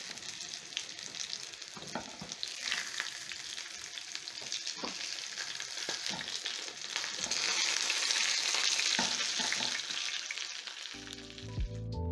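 Fish patties frying in hot shallow oil in a pan: a steady sizzle with a few light clicks, growing louder about two-thirds of the way through. Background music comes in near the end.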